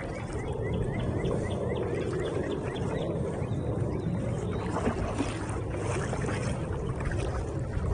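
Steady swishing and sloshing of river water around a person's legs as they wade through a current in rubber hip waders. Over the first few seconds a bird repeats a short rising chirp several times a second.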